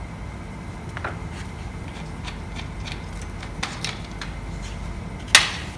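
Light clicks and taps of hands working on motorcycle wiring connectors and plastic parts, with one sharper, louder click near the end, over a low steady hum.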